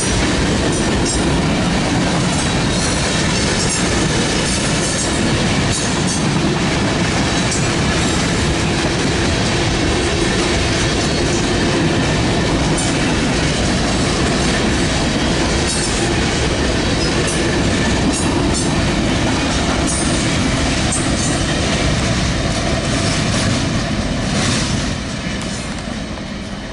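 Freight train's boxcars rolling past close by: a steady rumble of steel wheels on rail with repeated clicking over rail joints. The sound falls off near the end as the cars move away.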